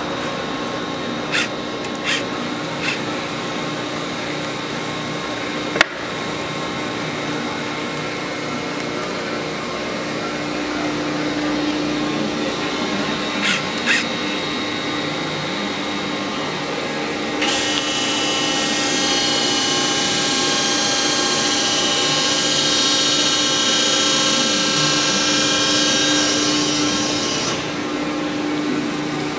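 Cincinnati CNC hydraulic press brake running with a steady hum and a few sharp clicks. Past the middle, a louder high hissing whine sets in for about ten seconds, then drops back to the hum.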